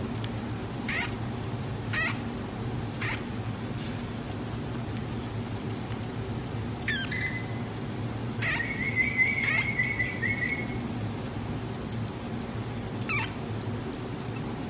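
Common marmoset giving short, high-pitched chirps, about ten of them roughly a second apart, each sliding down in pitch. One longer, steadier call lasts about two seconds in the middle. A low steady hum runs underneath.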